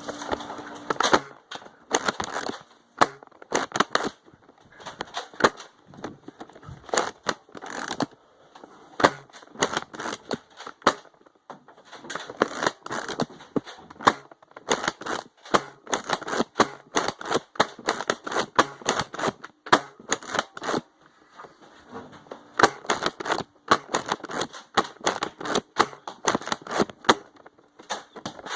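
Nerf blasters being worked and fired during a foam-dart fight: irregular sharp clicks and clacks, often several a second, in quick clusters with brief lulls.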